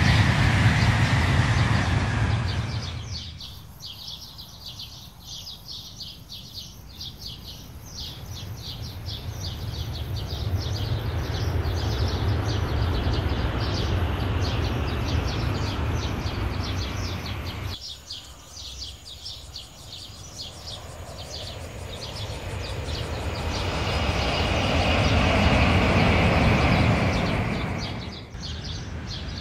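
Shinkansen bullet trains running past at high speed on elevated track, a rushing rumble of wheels and air that swells as each train comes near and fades as it goes, in several shots cut one after another. Rapid high chirping runs underneath in the quieter moments.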